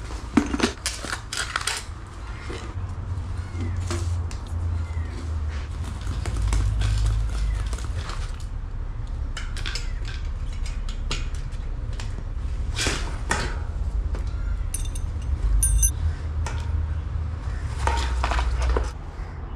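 Plastic tyre lever clicking and scraping against a bicycle wheel's rim and rubber tyre as the tyre and inner tube are pried off, in scattered clusters of clicks over a low steady rumble. The inner tube burst at the valve while being pumped and is being replaced.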